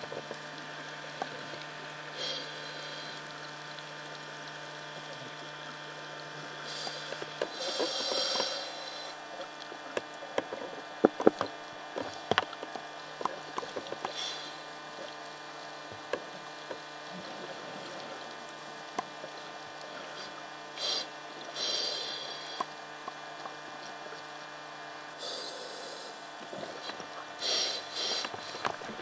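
Underwater scuba sound: a diver's regulator breathing, with loud hissing bursts of exhaled bubbles every few seconds, over a steady machine hum from the recording camcorder. A cluster of sharp clicks and knocks comes around the middle.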